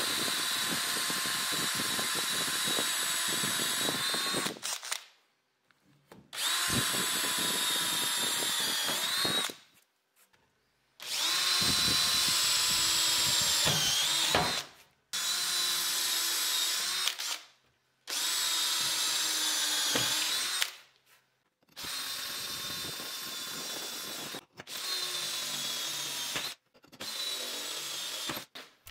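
Cordless drill-driver driving screws into wood in about eight runs of a few seconds each. Its steady whine dips in pitch at the end of some runs. The runs cut off abruptly, with short gaps of dead silence between them.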